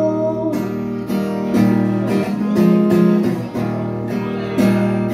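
Acoustic guitar strummed in slow chords, a fresh strum and chord change about once a second.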